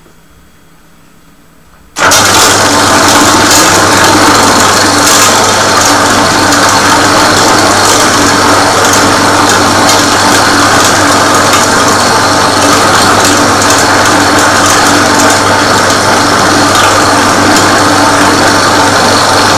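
Meat bowl cutter (Kutter) switching on about two seconds in and then running steadily at speed, its knives chopping beef and pork back fat into sausage meat, with a constant low hum under a loud, even chopping noise.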